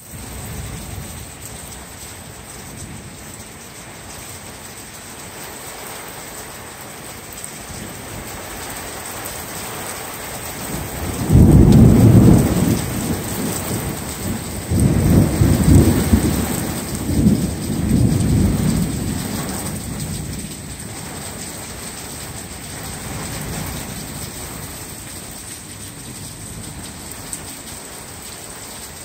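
Steady rain with a loud peal of thunder that breaks suddenly about eleven seconds in and rolls on in two or three more deep waves before dying away about ten seconds later.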